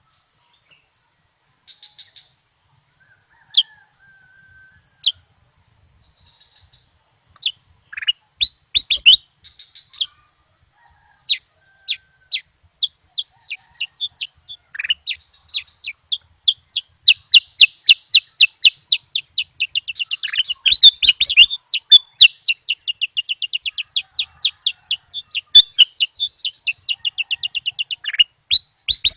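Bulbul singing: scattered short, sharp calls at first, then from about halfway a fast run of rapid chirps, several a second, over a steady high hiss.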